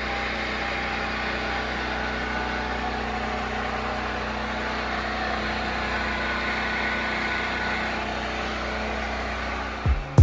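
Steady engine hum, like a vehicle idling, unchanging throughout.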